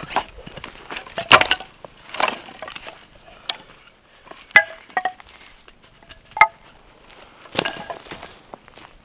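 Split firewood pieces dropped and laid onto a pile, dry wood knocking and clattering together in a string of sharp clacks, some with a short hollow ring, with rustling and footsteps on dry pine needles in between.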